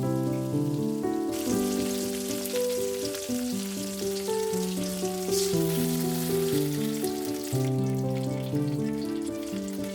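Tomatoes and tempering sizzling in hot oil in a pan, with a crackling hiss that comes up sharply about a second in and drops away a couple of seconds before the end. Melodic background music plays throughout.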